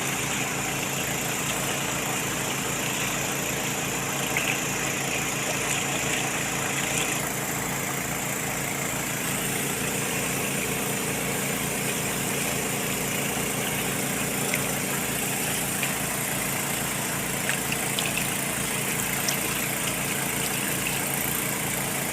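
Small Robin engine running steadily at a constant speed, with an even, regular firing pulse.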